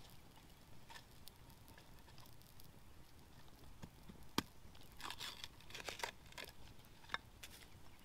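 A knife shaving and scraping a flat strip of split bamboo in a handful of short strokes bunched together about five to six seconds in, with sharp single snaps, the loudest about four seconds in.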